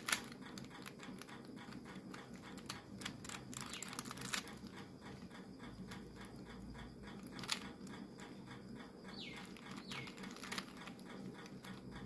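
Plastic 3x3 speed cube being turned by hand: irregular soft clicks and clacks of the layers, with a few louder clacks.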